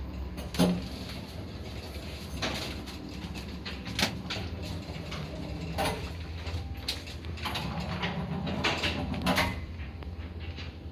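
1982 Samarkand (SamLZ) passenger lift: a steady low hum with a run of mechanical clunks and clicks from its doors and mechanisms, the sharpest knock about half a second in.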